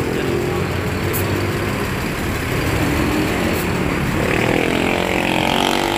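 Mercedes-Benz OH1626 diesel coach moving slowly past at close range, its engine running with a steady low drone, then rising in pitch about four seconds in as it pulls away.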